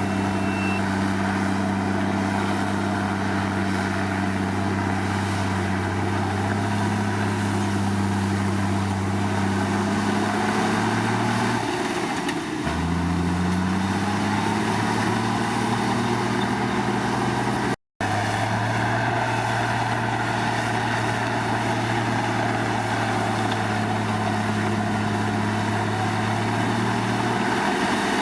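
Komatsu D53 bulldozer's diesel engine running steadily under work. About halfway through its pitch sags, then climbs back up as the engine comes back to speed, and the sound drops out for an instant a few seconds later.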